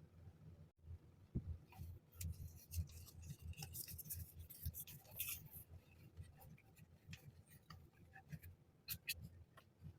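Faint handling noises of stationery and packaging being unboxed: light rustling, rubbing and scattered small taps and clicks, busiest in the first half.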